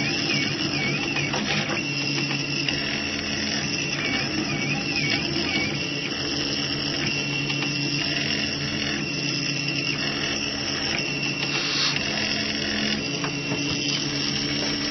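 RepRapPro Mendel 3D printer running a print, its stepper motors whining in steady tones that change pitch every second or so as the print head and bed shift direction.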